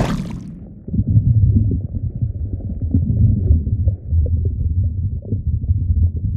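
Wet bog-hole mud and bubbles gurgling and rumbling, low and murky with many small crackles. A brief hiss dies away at the very start.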